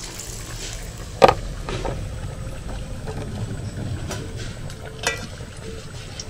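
Potato chops in gram-flour batter deep-frying in a wok of oil, a steady sizzle over a low rumble. A sharp clink about a second in, with lighter clicks near the end.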